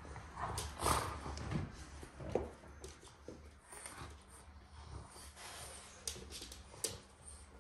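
A dog making a few short, irregular noises, loudest about a second in and again near two and a half seconds, with scattered clicks over a steady low hum.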